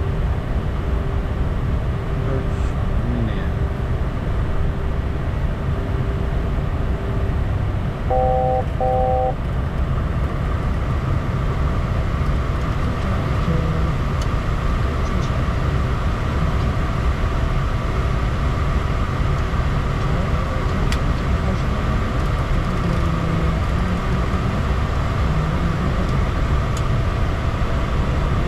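Steady rumble and rush of a Bombardier Challenger 350 business jet, with two short electronic beeps about eight seconds in.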